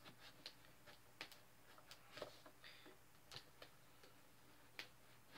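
Scissors cutting into the packing tape and cardboard of a shipping box: faint, irregular snips and clicks, more than a dozen, unevenly spaced.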